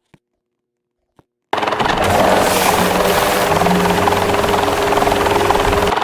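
Fujitsu air conditioner starting up: after a couple of faint clicks, a loud, fast-fluttering whirring with a steady hum starts abruptly about one and a half seconds in and keeps going. It is the noise of a failing unit.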